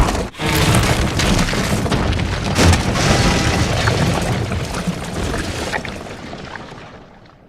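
Animated-film sound effect of a big blast and crash: a long rush of noise with rumbling and breaking, a sharp crack about two and a half seconds in, dying away over the last couple of seconds.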